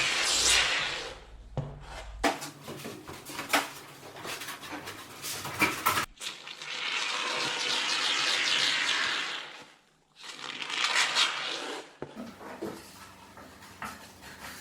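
Rigid foam insulation board rubbing and scraping against a garage door panel in several stretches, with scattered knocks and taps between them.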